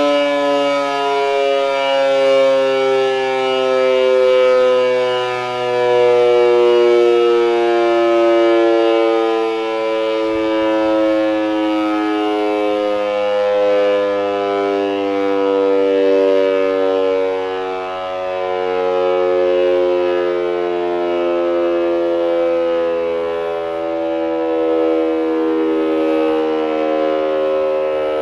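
Old Siemens & Halske electro-mechanical air-raid siren wailing continuously during a siren test, a rich tone full of overtones whose pitch slowly sinks while the volume swells and eases.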